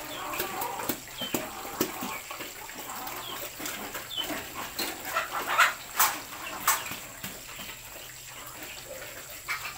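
Livestock sounds around sow farrowing crates: scattered short animal calls with a run of sharp clicks and knocks, the loudest about five to seven seconds in.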